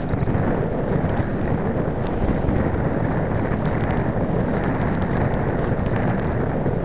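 Steady wind rush buffeting the built-in microphone of an 808 #16 keychain camera carried on an AXN Floater RC foam plane in flight.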